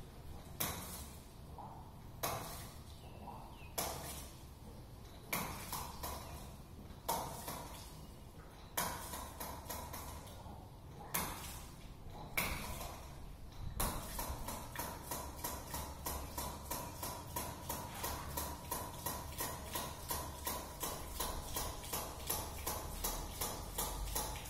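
Hydraulic ram pump clacking as its waste valve slams shut on each water-hammer cycle. The clacks come about every second and a half at first, then about 14 s in they quicken into a steady beat of about three a second, the pump cycling on its own.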